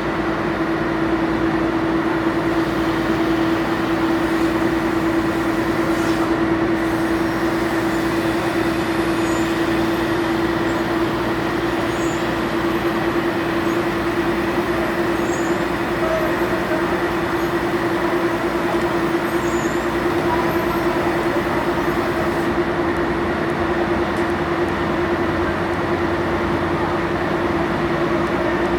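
A passenger car ferry's engines and machinery running, a steady drone with a constant hum throughout.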